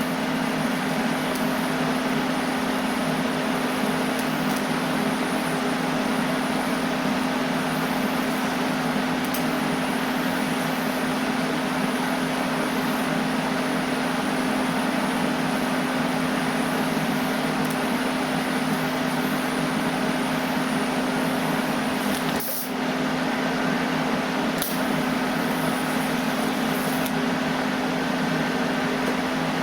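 Steady machine hum with a strong low drone and a hiss, broken by two brief dips about 22 and 25 seconds in.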